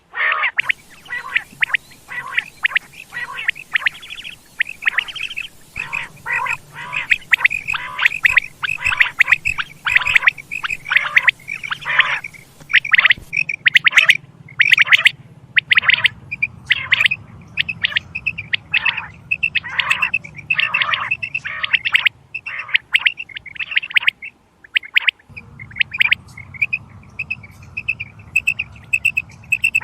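Quail calling over and over in short, quick notes: dense overlapping calls at first, then more spaced notes, and about 25 seconds in a fast, even string of high notes. It is a quail call played as a lure for quail hunting.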